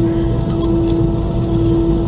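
Airbus A320's CFM56 turbofan engines idling, heard from inside the cabin: a steady low drone with one strong, unwavering tone.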